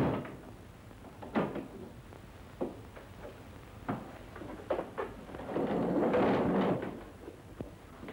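Sparse wooden knocks and creaks of a door in a quiet room, with one longer creak a little past halfway through.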